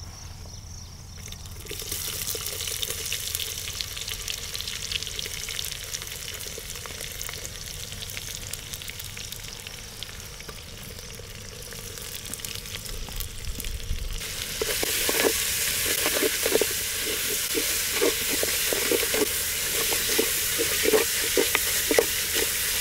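Sliced onions sizzling as they fry in hot mustard oil with whole spices in a clay pot; the sizzling starts about two seconds in as the onions hit the oil. About fourteen seconds in it grows louder, and a wooden spatula stirs them, knocking and scraping against the clay pot.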